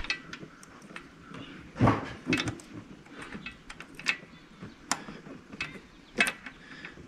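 Irregular metallic clicks and taps of a rocker arm being worked back into place under a compressed valve spring on the overhead-cam V8 of a 1972 Mercedes-Benz 280SE 4.5, the loudest knock about two seconds in.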